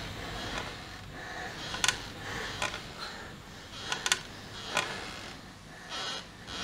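Quiet, hushed room tone broken by a handful of sharp, irregular clicks and taps. The loudest come about two seconds in and a pair about four seconds in.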